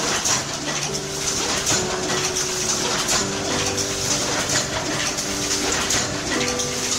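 A letterpress printing press running, feeding and printing sheets with a steady mechanical clatter, under a melody of background music.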